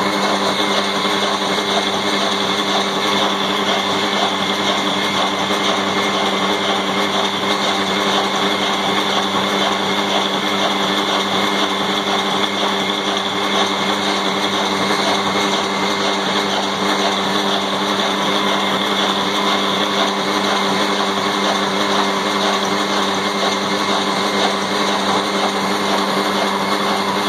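An old Ruston Hornsby single-cylinder horizontal engine running steadily, belt-driving a flour mill (chakki) as it grinds. The sound is loud and unbroken, with a constant hum under the grinding noise.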